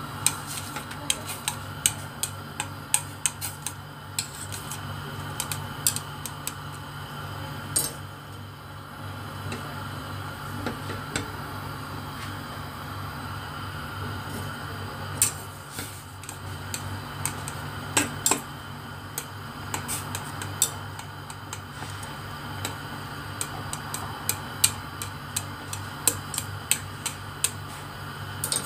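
Noodles boiling in water in a stainless steel pot: frequent irregular sharp ticks and pops over a steady low hum.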